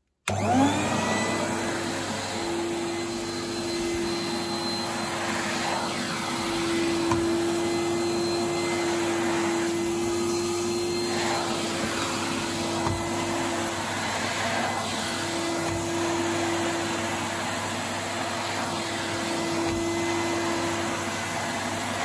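Numatic Henry HVR200 vacuum cleaner's 1000-watt motor switching on and spinning up in a rising whine, then running steadily as its floor tool is pushed over carpet.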